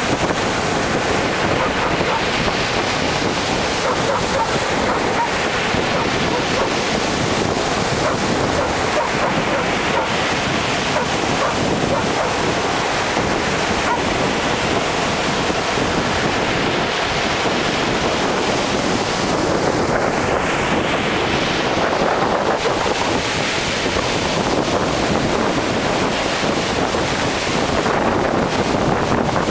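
Sea surf breaking and washing up a sandy beach, a steady rush with waves surging in every several seconds, and wind buffeting the microphone.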